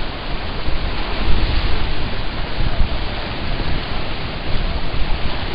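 Rushing white water on an artificial white-water course: a loud, steady wash of noise with no break in it.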